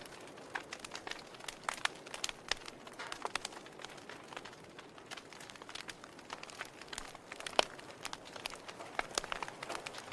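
Wood fire crackling in a fireplace: irregular snaps and pops from the burning firewood over a soft steady hiss, with one sharper pop a little past the middle.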